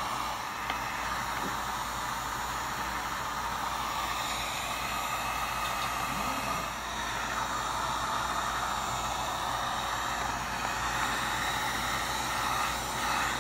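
Wagner heat gun running steadily, its fan and hot-air blast making an even hiss as it shrinks blue PVC wrap over a battery pack.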